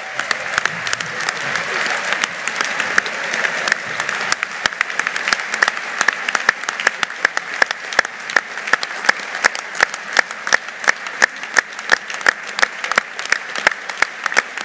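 A large crowd applauding. The scattered clapping settles after about five seconds into loud clapping in unison, at about two to three claps a second: a standing ovation.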